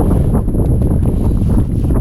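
Strong wind buffeting the microphone: a loud, low rumble with irregular gusty surges and knocks.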